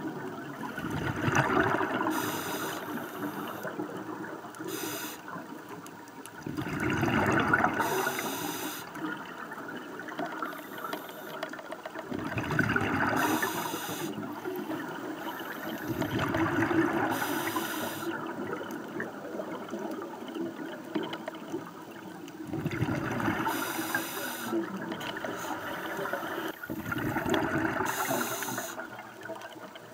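Scuba diver's breathing heard underwater through the regulator: a bubbling rush of exhaled air about every five seconds, with short high hisses in between.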